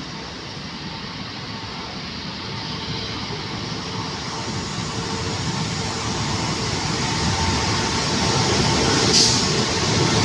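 FS D.345 diesel-electric locomotive hauling a passenger train as it approaches, its engine and rolling noise growing steadily louder, with a steady hum underneath. A short hiss comes near the end.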